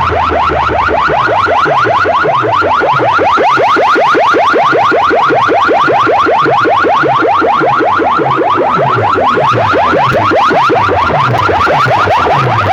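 A siren-like electronic effect played very loud through a DJ sound system: rapid rising whoops, about six a second, over a low bass pulse about twice a second.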